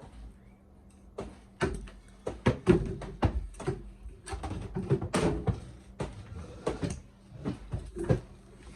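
An irregular run of knocks and thumps, like things being handled and bumped against furniture, loudest around a third of the way in.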